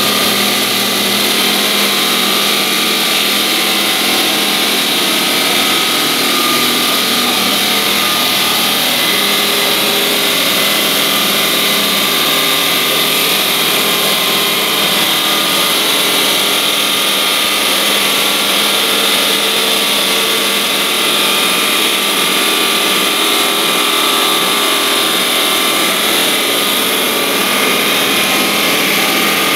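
Saw heads of a Breton Huracan stone-cutting machine running and cutting a 12 mm ceramic slab with water-cooled blades: a loud, steady mix of motor whine and the hiss of blades grinding through the ceramic.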